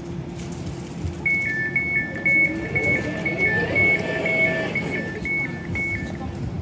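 Elizabeth line Class 345 train's door warning beeps: a two-tone beep, high then low, repeating about twice a second, starting about a second in, over the train's steady low hum.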